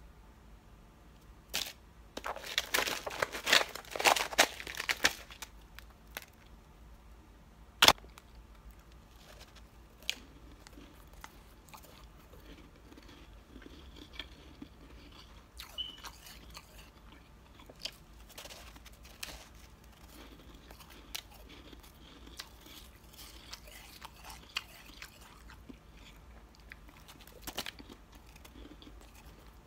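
Powdery chunks of freezer frost bitten and chewed: a dense burst of loud crunching a couple of seconds in, a single sharp snap near eight seconds, then softer, scattered crunches and chewing.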